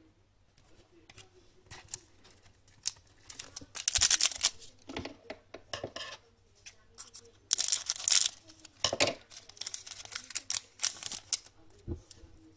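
Hands handling trading cards and a card pack wrapper: paper rustling and clicking, with two louder ripping sounds of the wrapper about four and eight seconds in.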